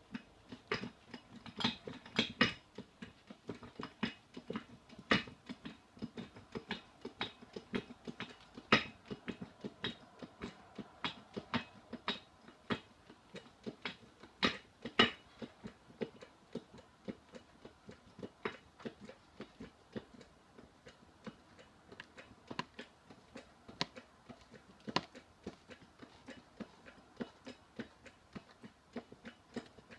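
Hydraulic shop press being pumped as its ram comes down: irregular clicks and knocks, about one to three a second, a few of them much louder than the rest.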